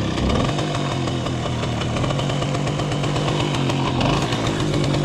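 Romet Komar 2351 moped's two-stroke single-cylinder engine running steadily, just after being started.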